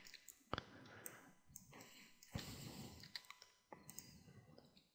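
Faint, scattered clicks of a computer mouse and keyboard, about ten irregular taps over a few seconds against near silence.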